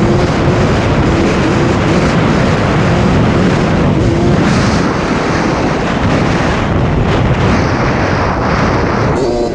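Suzuki RM60 two-stroke mini dirt bike engine running at speed, its pitch wavering, under heavy wind rush on the microphone. The sound dips briefly near the end.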